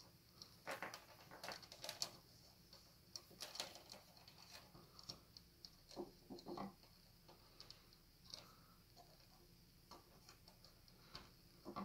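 Faint, scattered clicks and light scraping as MOSFET wires are pressed into the channels of a metal gel blaster gearbox shell by hand, busiest in the first four seconds with another cluster around six seconds.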